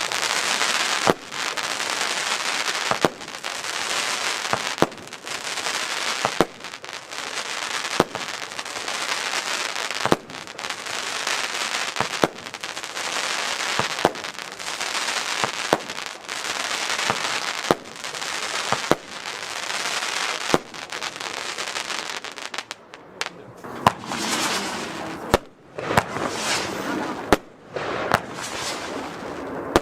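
Nico Time Rain F2 firework battery firing shot after shot, with a sharp report every second or two over dense, continuous crackling. About three-quarters of the way through the crackling stops briefly, and the next battery starts with separate bangs and short gaps between them.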